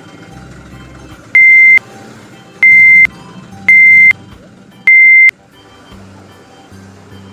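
Four loud, steady electronic beeps about a second apart, like a truck's reversing alarm, over background music.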